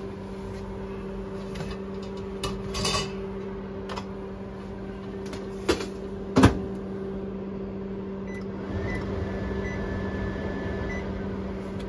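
Steady hum of a Sharp convection microwave oven's fan running, with several sharp metallic knocks and clanks as a perforated metal baguette pan is lifted out and set down on a stone counter. The loudest knock comes about six and a half seconds in.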